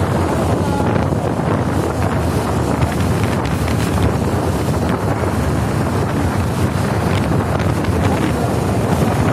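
Wind buffeting the microphone on a moving motorbike, a steady low rumble, with the bike's engine running underneath.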